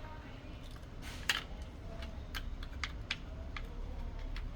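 Light clicks and taps of small plastic and metal digital door lock parts being handled and fitted by hand, scattered irregularly, with a short scrape about a second in.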